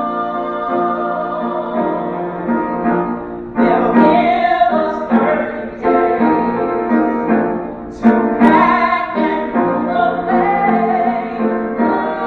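A solo singer performing a musical-theatre song with piano accompaniment. Sustained piano chords run under it, and the voice sings in phrases.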